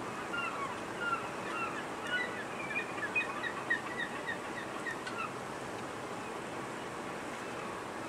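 Steady outdoor ambience of wind and harbour water. Over it runs a quick flurry of short, high chirping calls that dies out about five seconds in.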